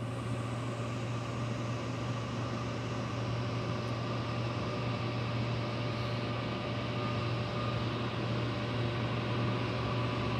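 Steady hum of a large machine shop's ventilation and air handling, with a strong low drone and a few faint steady tones above it. The machine tools themselves stand idle.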